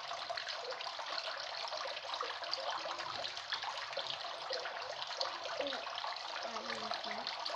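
Steady crackling hiss of running or splashing water, continuous throughout with no break.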